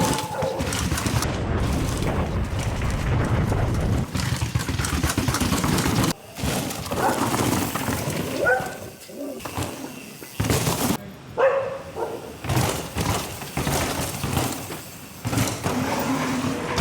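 Mountain bike being ridden hard over rough ground: tyres on dirt and stone with chain and frame rattling, the sound changing abruptly several times.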